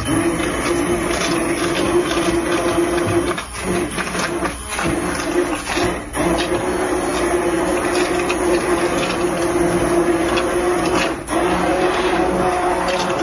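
Handheld immersion blender running in a pot of cooked vegetables and stock, its motor humming steadily as it purees the chunks into a thick soup, with a few brief dips as the blade is moved through the pot.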